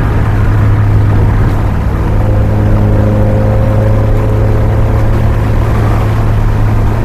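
Datsun car heard from inside the cabin while cruising on the freeway: a steady low engine drone mixed with road and wind noise. A few higher steady tones join the drone about two seconds in.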